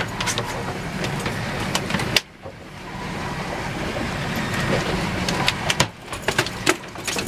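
Boat engine running with a steady low drone, with frequent sharp clicks and knocks over it. The sound dips sharply for a moment about two seconds in.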